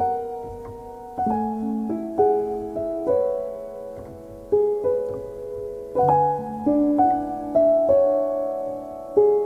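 Background music: slow, gentle piano, notes struck one after another and left to ring and fade.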